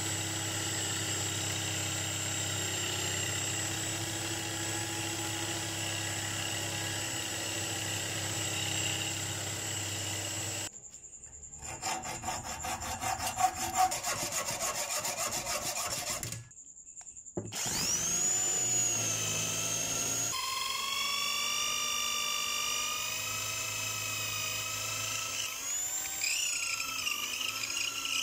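An electric drill spins a wooden handle while sandpaper is held against it, a steady motor sound. About ten seconds in, a steel tang held in a vise is sawn with quick, even strokes for several seconds. Then the drill runs again, its pitch dipping and recovering several times near the end as it is loaded.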